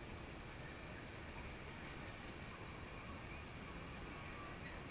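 Steady low rumble of a pickup truck rolling slowly past, over general street noise, with a brief faint high-pitched chirp about four seconds in.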